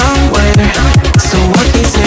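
Loud electronic background music with a heavy bass line and a pitch-dropping bass hit about every half second.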